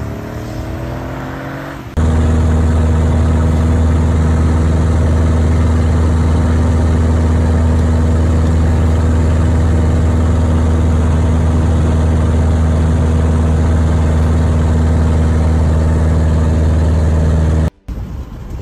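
Steady, loud drone of a small propeller aircraft's engine heard from inside the cabin. It starts abruptly about two seconds in and cuts off sharply near the end. Before it, a car is heard driving along with its engine pitch rising.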